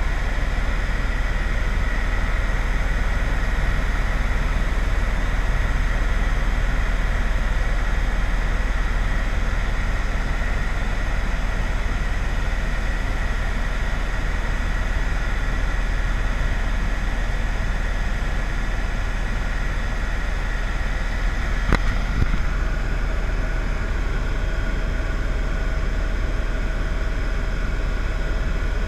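Steady vehicle engine noise with a low rumble and a constant high whine, and one short click about 22 seconds in.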